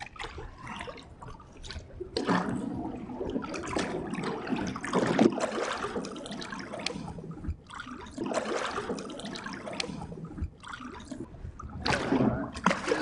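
Water splashing and sloshing around a hand and a redfish held in the water over a boat's side while it is being released, in several bursts. A louder splash near the end as the fish kicks free.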